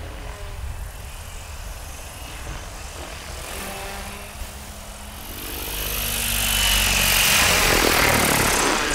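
Nitro RC helicopter coming down in an autorotation, its engine throttled back: the main rotor blades whoosh, growing louder from about halfway through as it descends close to land, over a faint low engine hum.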